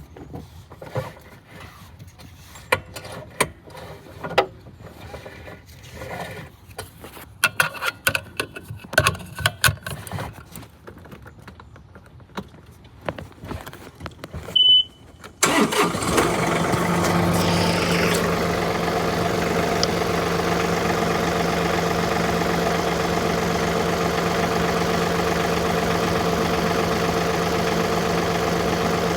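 Scattered clicks and knocks for about fifteen seconds and a short beep, then a riding tractor's engine starts abruptly and settles into a steady idle.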